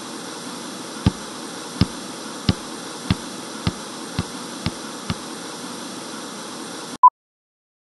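Even television-static hiss, crossed by eight low thumps that come faster and faster and grow weaker. The hiss cuts off suddenly, followed by one short beep.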